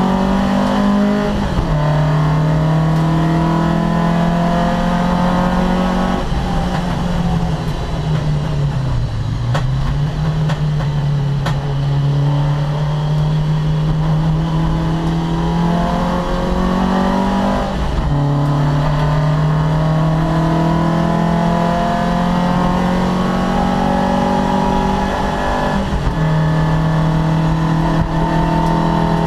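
Opel Kadett C race car's engine under hard acceleration, its pitch climbing steadily and falling back sharply at each gear change, four upshifts in all. About a third of the way through, the engine note sags low and climbs again, as on a downshift through a corner.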